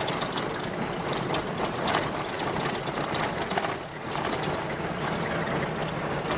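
Vehicle driving on a rough dirt track: steady tyre and road noise with a constant clatter of rattles, dipping briefly about four seconds in.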